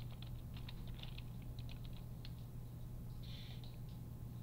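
Computer keyboard keys clicking in light, irregular taps, over a steady low hum, with a short hiss about three seconds in.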